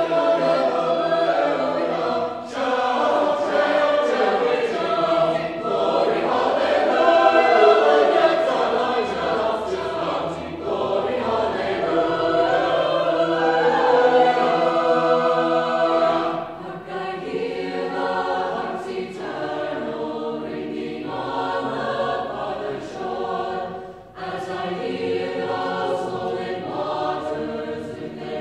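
A choir of mixed voices singing as a music track, in sustained chords that give way about halfway through to shorter, separated notes.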